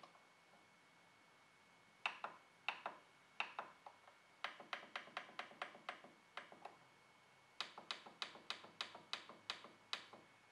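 Plastic control-panel buttons of a Canon MF113W laser printer clicking as the arrow keys and OK key are pressed to type a Wi-Fi password: a few single presses, then two quick runs of about five clicks a second. A faint steady high tone sits underneath.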